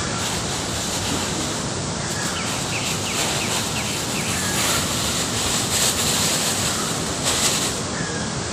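Steady outdoor rushing noise, like wind, with a bird giving a quick run of about seven short chirps about two and a half seconds in, and a few brief rustles later on.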